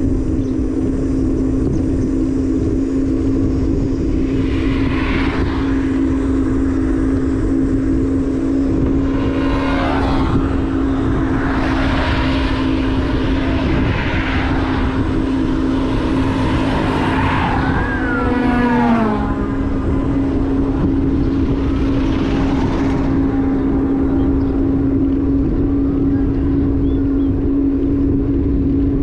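On-board sound of a motorbike cruising along a road: a steady engine hum over heavy wind rumble on the microphone. Other vehicles swell past several times in the middle stretch, and one passes about 18 seconds in with its pitch dropping.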